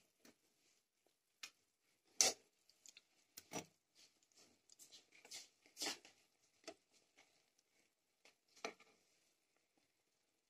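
Sparse light clicks and knocks, the loudest about two seconds in and again near six seconds: a metal spoon handling blocks of Maggi instant noodles in a pan of boiling water.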